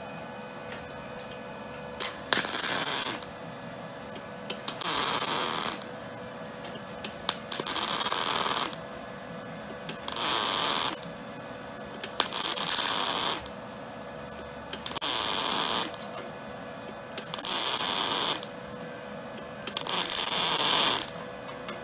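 MIG welder arc crackling in eight short bursts of about a second each, a couple of seconds apart, as weld is laid in stitches to bridge a gap in the steel radiator core support. A steady hum runs underneath.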